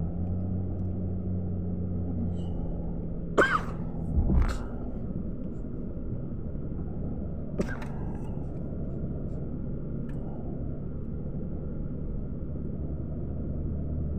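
Steady low rumble of a car's engine and tyres heard from inside the moving car. The engine's hum drops a little in pitch about four seconds in. A few brief sharp sounds stand out over it.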